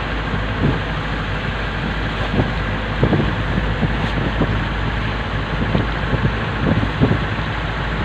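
Bangka outrigger boat's engine running steadily under way, with wind on the microphone and irregular slaps of water against the hull.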